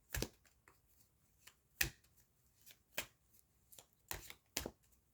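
Tarot cards being shuffled by hand, with a handful of sharp card snaps at uneven intervals.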